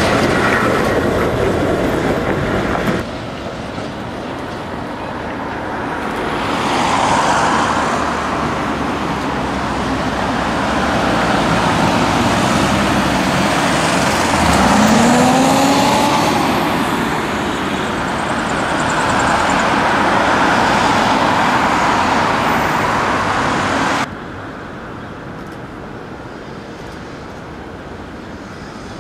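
Street traffic noise in three takes. At the start a tram rolls away from the stop. After a sudden change about three seconds in, road traffic and a large bus pass close by, with a rising whine about halfway through. After another sudden drop near the end, quieter, more distant street noise.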